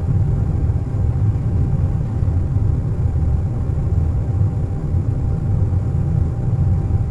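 Airliner cabin noise in cruise: a steady deep rumble of engines and airflow, with a faint steady whine over it.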